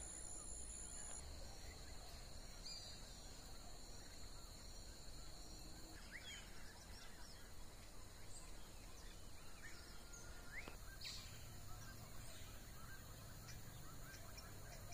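Faint outdoor countryside ambience: a few short, scattered bird chirps over a steady high-pitched drone and a low rumble.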